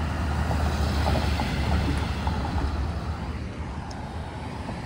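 Road traffic passing close by: a pickup truck towing a trailer goes past with a low engine rumble and tyre noise that swell about a second in and then ease off as an SUV follows.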